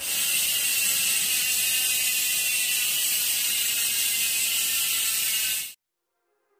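A steady, high-pitched mechanical ratcheting whir that cuts off suddenly near the end.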